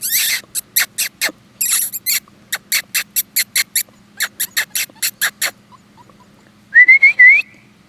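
Fox red Labrador puppies playing: a run of quick, sharp clicks, then a short high-pitched puppy squeak near the end.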